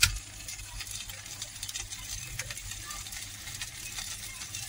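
Mashed cow brain frying in desi ghee in a non-stick pan: a soft, steady sizzle with faint scattered crackles. A short knock at the very start.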